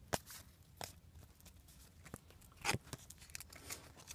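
Trading cards being flipped through by hand: about half a dozen short slides and flicks of card against card, the longest about two and a half seconds in.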